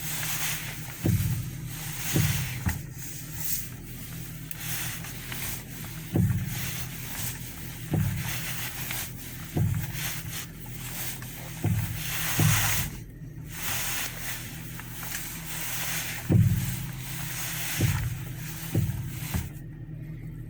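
Worn bearing in a car's right front strut mount clunking and popping as the steering wheel is turned: about ten dull, uneven knocks over a steady low hum, the sign of a bad top strut mount.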